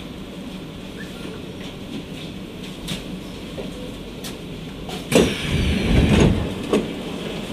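Steady hum of a stopped C151A metro train, then about five seconds in a sudden clunk as the train's passenger doors and the platform screen doors slide open, with a loud sliding rumble for about a second and a half and a shorter knock as they reach the end of their travel.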